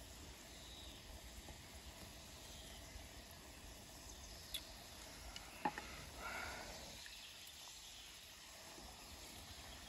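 Hot oil sizzling faintly and steadily in a frying pan of potato wedges. A couple of sharp clicks from a knife on a wooden cutting board come a little over halfway through.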